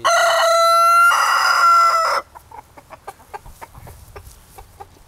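Rooster crowing once, a loud crow of about two seconds that changes pitch partway through and cuts off. It is followed by faint clucks and small ticks from the flock.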